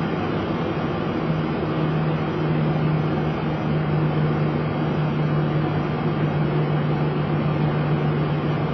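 Steady cockpit noise of a Boeing 737 taxiing slowly onto its stand with the engines at idle. A low steady hum joins about a second in.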